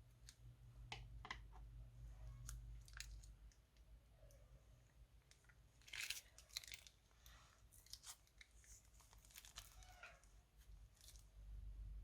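Crunchy clear slime being squeezed and worked by hand, giving faint scattered crackles and pops, with a denser run of crunching about six seconds in and again from about eight to ten seconds.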